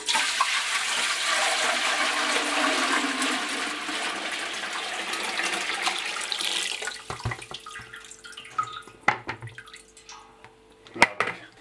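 About 3 gallons of water poured from a plastic bucket into an empty stainless steel brew kettle: a steady gush for about seven seconds that tails off into trickling and dripping, with a couple of sharp knocks near the end.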